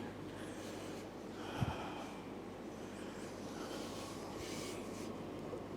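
A person's faint breathing and quiet handling noise while working on steel rack parts, with one soft low thump about one and a half seconds in and a sharp metal knock at the very end.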